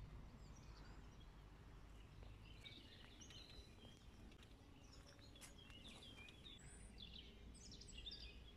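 Faint outdoor ambience: several small birds chirping, with short scattered calls that grow busier about halfway through, over a low steady rumble.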